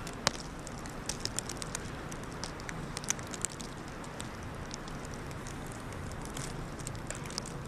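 Plastic trash bag crackling in light, scattered ticks over a steady hiss of wind, with one sharper click just after the start.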